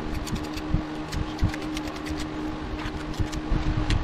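Steel tuckpointing tool and trowel scraping and clicking as wet mortar is pushed into a cracked joint of a concrete-block foundation wall: many short, sharp scrapes and taps, over a steady low hum.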